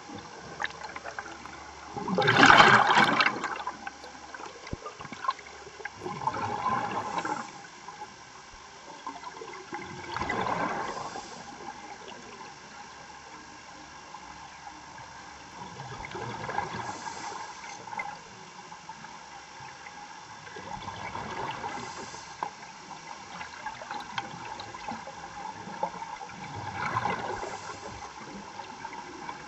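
A diver breathing underwater: bursts of exhaled bubbles gurgling from the regulator about every four to six seconds, the loudest near the start.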